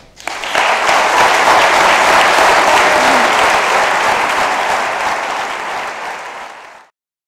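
Audience applauding, rising quickly within the first half second, holding steady, easing slightly and then cut off abruptly near the end.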